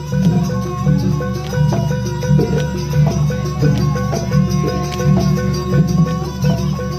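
Live jaranan accompaniment music: a Javanese percussion ensemble, with low drums beating a steady, quick rhythm under ringing pitched tones.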